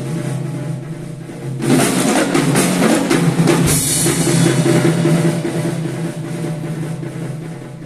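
Multipercussion ensemble playing fast drumming with drum rolls, swelling louder about two seconds in and easing off near the end.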